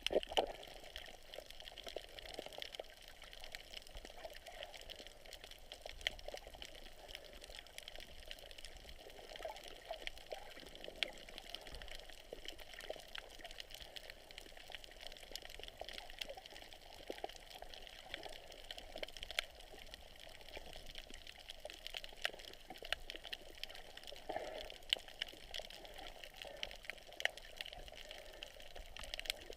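Underwater sound through a GoPro's waterproof housing: a steady, muffled water hiss with many small scattered clicks and crackles.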